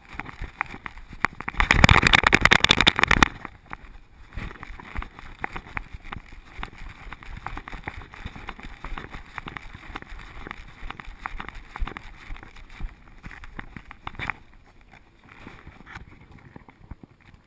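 Handling noise of a body-worn camera being jostled as its wearer moves: rustling and rubbing against fur, with many small clicks and knocks. A loud rough rustle lasts about a second and a half near the start.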